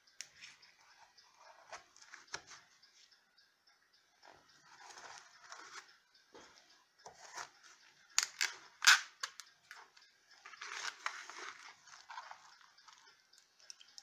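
A table knife cutting a slice of no-bake lime pie: scattered scrapes and crunches as the blade goes through the graham cracker crust and scrapes the foil pie pan, with a few sharp clicks about eight to nine seconds in.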